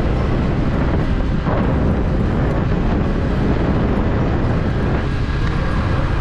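Wind buffeting the microphone of a moving motorcycle: a loud, steady rush with no break.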